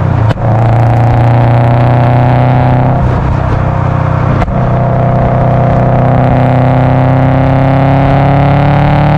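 Exhaust of a tuned Subaru Impreza WRX's turbocharged EJ205 flat-four running under load, its pitch climbing slowly. Two sharp cracks cut through it, about a third of a second in and again about four and a half seconds in, each with a brief dip in the engine note.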